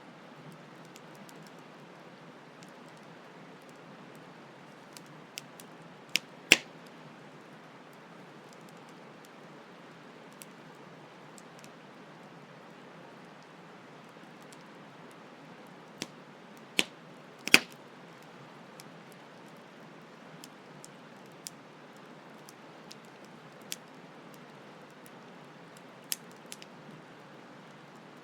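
Campfire crackling: scattered sharp pops and snaps over a steady hiss of flowing stream water. The loudest pops come about six and a half and seventeen and a half seconds in.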